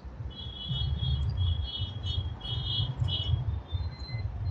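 High-pitched chirping in a run of short, rapid pulses lasting about three seconds, over a low, steady rumble.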